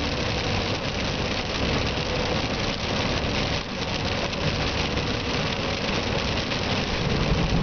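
Steady noise inside a car driving on a rain-soaked road: engine hum under an even hiss of tyres on wet pavement and rain.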